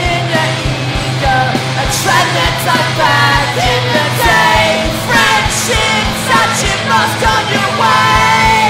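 Loud punk rock band playing: bass guitar and electric guitar with drums keeping a steady beat, without a break.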